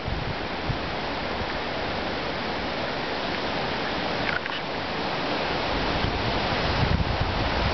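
Hurricane Irene's storm wind rushing through the yard and trees as a dense, steady roar. Gusts buffet the microphone and grow stronger toward the end.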